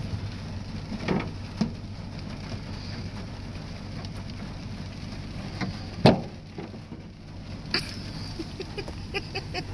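Wiper blade being fitted onto its arm on a rain-wet windshield, heard from inside the cab: scattered clicks and knocks against the glass, one sharp knock about six seconds in and a few quick ticks near the end, over a steady low hum.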